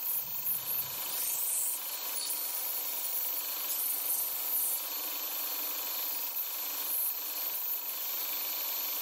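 Belt grinder running, with a bearing-steel knife blade held against the abrasive belt: a steady grinding hiss.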